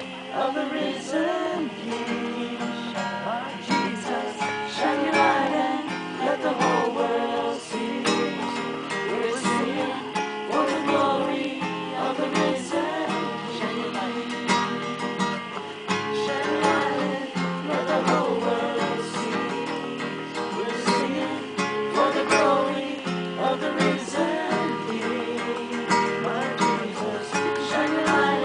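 Acoustic guitar strummed in a steady rhythm, with voices singing a worship song over it.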